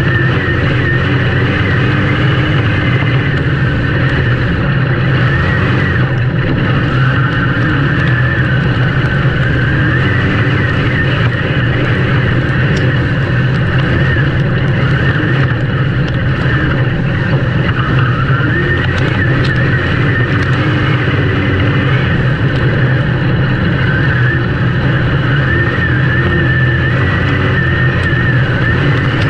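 Race engines running at speed in a steady, loud drone, their pitch wavering up and down as the drivers work the throttle.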